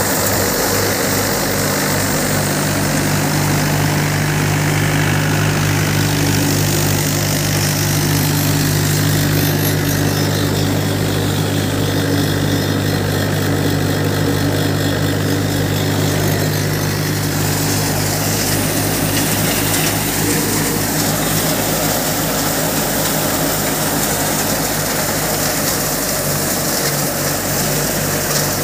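Mahindra 475 tractor's diesel engine running steadily under load, driving a Kamdhenu threshing machine whose drum whirs as crop stalks are fed in.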